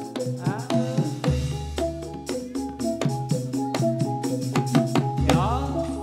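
Jathilan dance music: a Javanese gamelan-style ensemble of tuned metal percussion and drums playing a steady, lively beat.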